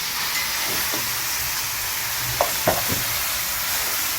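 Chicken pieces frying in a pot of hot oil and curry powder, a steady sizzle, with two sharp knocks about two and a half seconds in.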